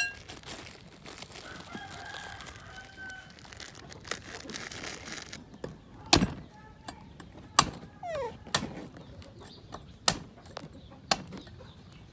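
A cleaver chopping into a green coconut: about five sharp strikes roughly a second apart in the second half, the loudest sounds here. Before them a hissing, rustling noise, with a chicken calling faintly in the background.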